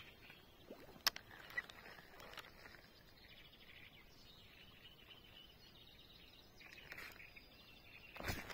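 Quiet pondside ambience with faint bird calls, broken by a few sharp clicks from handling the spinning rod and reel and a brief rustle near the end.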